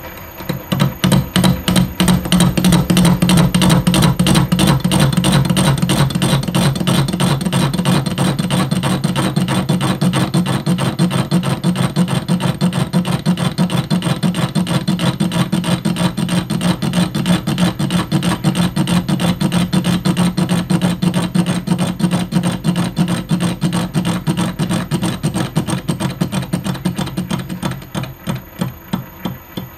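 Metal lathe turning a flywheel made from a weightlifting weight plate while the tool takes a cut across its face, with a rapid, even clatter over the lathe's running tone. It starts about a second in and falls away near the end.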